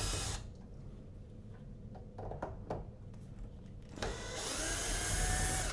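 Cordless drill-driver backing out the mounting screws of an old interior doorknob: a few light clicks of the bit seating, then near the end the motor runs for under two seconds with its pitch creeping up a little.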